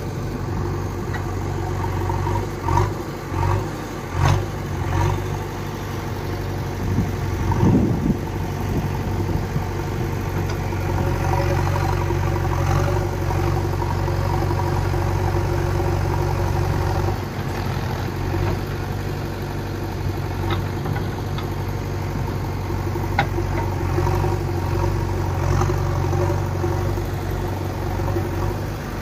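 Diesel engine of heavy farm machinery running steadily at idle. A few clanks come in the first few seconds, and there is a short rise and fall in pitch about eight seconds in.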